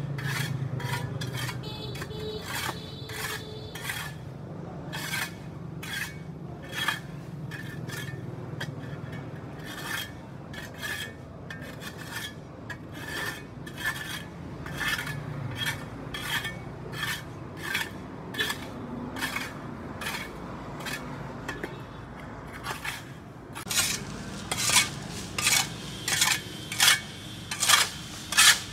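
Repeated scraping strokes of a hand tool across sidewalk paving, scraping off grime, about one and a half strokes a second, louder near the end.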